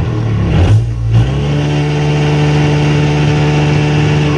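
Electric drive motor of a jet ski conversion spinning the drive shaft under a little throttle: a steady motor hum that steps up in pitch about a second in, then holds.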